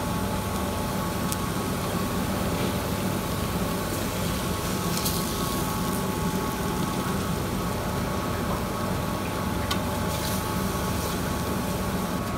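Chicken breasts cooking on a hot griddle: a steady hiss with a few faint crackles, over a constant low mechanical hum.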